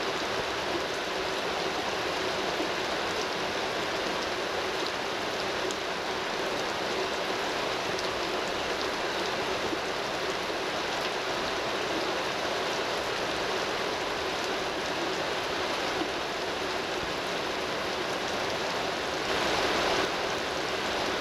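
Steady rain falling and hitting an open umbrella, a little louder briefly near the end.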